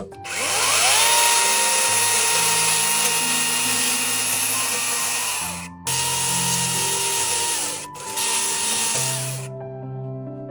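An electric power tool spins up with a rising whine, then runs at steady speed in three stretches, with brief pauses about six and eight seconds in, before stopping near the end. Background music plays underneath.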